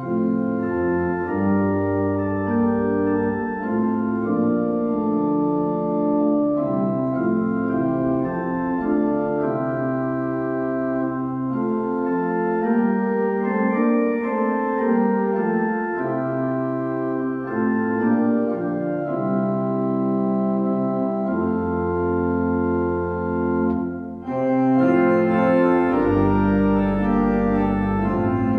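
Organ music: slow, held chords that change every second or two, with a brief break about 24 seconds in, after which it comes back fuller, with deep bass notes.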